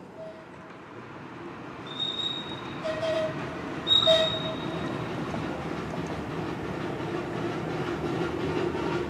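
Miniature-railway train drawn by a Hunslet 0-4-0 saddle-tank steam locomotive approaching on curved track: several short high-pitched wheel squeals in the first half, the loudest about four seconds in, over a rumble of wheels on rail that grows steadily louder.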